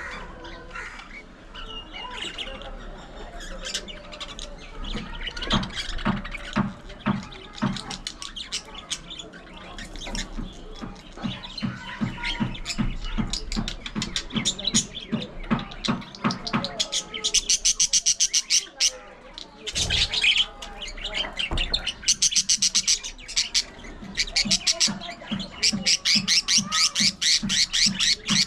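Budgerigars chattering and squawking, a busy stream of short chirps and warbles; in the second half the calls come in fast runs of repeated shrill notes.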